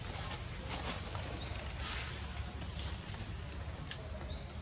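A bird calling repeatedly with short chirps, roughly one a second; some drop in pitch and some rise. Under it runs a steady high hiss and a low rumble.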